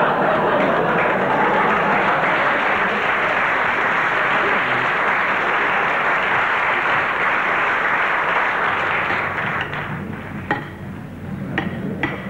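Studio audience applauding, a dense steady clatter that dies away about nine or ten seconds in, leaving a few scattered sharp clicks near the end.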